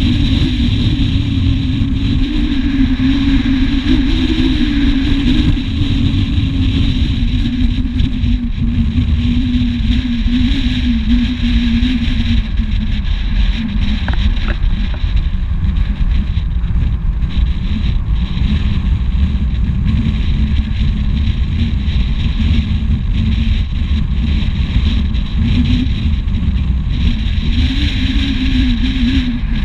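Car driving at speed: a dense low rumble of wind and road noise on the camera microphone, under a steady engine drone whose pitch climbs a little early on, sags about twelve seconds in and climbs again near the end.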